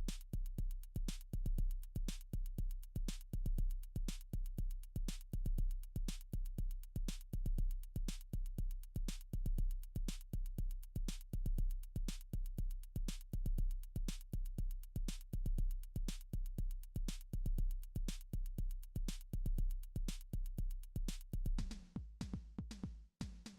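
Electronic background music: a fast, steady drum-machine beat over a deep synth bass, shifting to a lighter pattern near the end.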